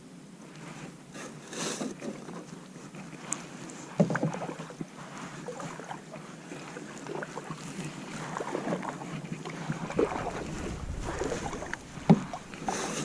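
Canoe on the water: paddle strokes swishing and dripping, with scattered knocks against the hull, the sharpest about four, ten and twelve seconds in.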